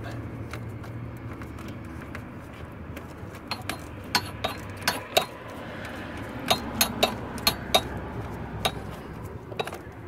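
Irregular sharp metallic clicks and clinks, a few a second, starting a few seconds in: a hand tool on the bolts of a new ignition switch being fastened under a steering column.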